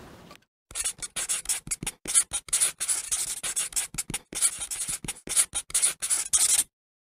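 Marker pen scribbling on a surface: a quick run of many short, scratchy writing strokes that stops abruptly shortly before the end.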